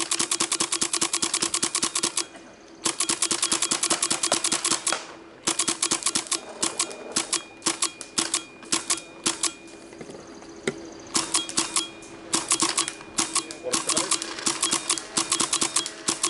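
Empire Resurrection paintball marker firing rapid strings of shots, about a dozen a second, with brief pauses about two, five and ten seconds in. A steady low hum runs underneath.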